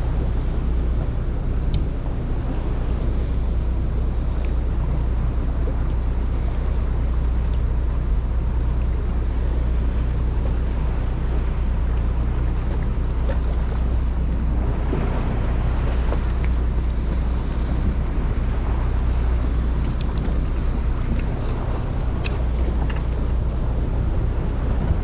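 A fishing boat's engine runs with a steady low drone, under wind buffeting the microphone and sea water washing against the hull.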